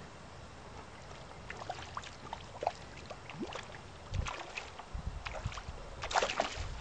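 River water gurgling and lapping, with scattered small splashes and low bumps and a louder splash about six seconds in.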